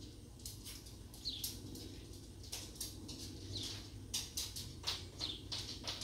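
Sparrows chirping, short high chirps coming about two a second, some with a quick downward slur, over a low steady hum.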